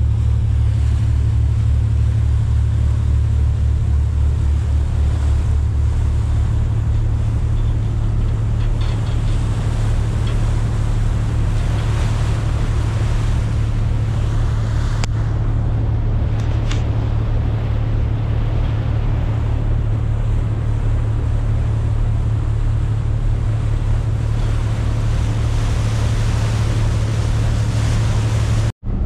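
Steady low drone of a ferry's engine with a broad rush of wind and water over it. The sound cuts out for an instant near the end.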